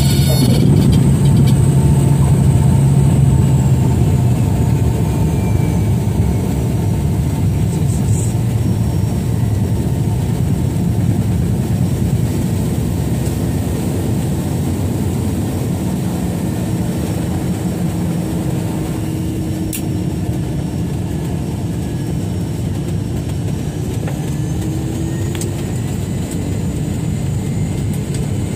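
Small propeller aircraft's engine and propeller running, a loud steady drone with a fainter tone that rises in pitch near the end.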